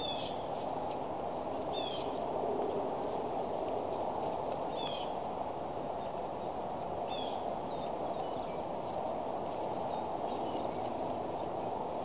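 A bird gives short, high, falling chirps every two or three seconds, the later ones fainter, over a steady rushing background noise.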